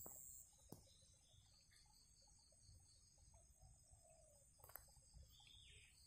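Near silence, with faint insects chirping in an even pulse. A high steady insect buzz cuts off just after the start, and a short falling call comes near the end.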